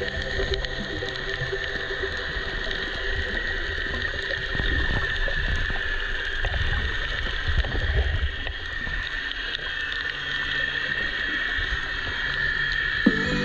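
Underwater sound of a camera submerged over a shallow reef: a steady hiss with muffled low swells of moving water and faint crackling clicks.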